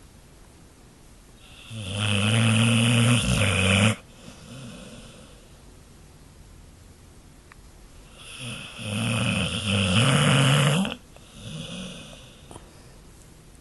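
A pit bull snoring in its sleep: two long, loud, rattling snores about six seconds apart, each followed by a softer breath out.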